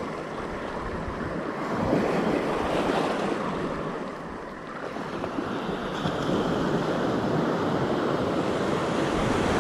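Ocean surf washing onto the beach, with wind buffeting the microphone. The sound swells about two seconds in and dips briefly around the middle.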